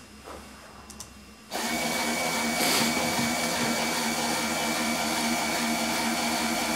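Small electric air compressor of a fischertechnik pneumatic model switching on about a second and a half in and then running with a steady hum, supplying air for the pneumatic hand.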